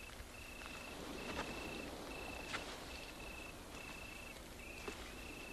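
Faint crickets chirping: a thin, high, steady trill broken into short runs of about half a second, repeating over and over.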